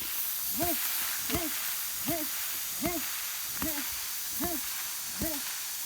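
An animal's short hooting call, rising and falling in pitch, repeated evenly seven times, a little more than once a second, over a steady high hiss.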